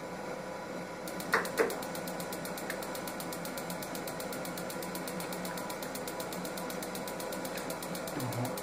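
SOLLY H18 gas boiler's combustion fan running with a steady hum. From about a second in, the ignition electrode ticks rapidly and evenly, sparking without lighting because the gas supply is still shut off. Two sharp knocks come a little over a second in.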